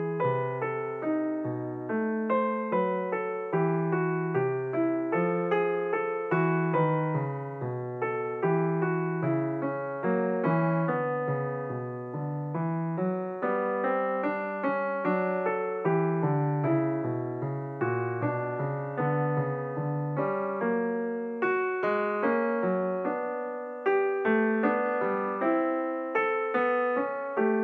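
Background piano music: a gentle melody of plucked-sounding notes that each ring and fade, played at an even pace.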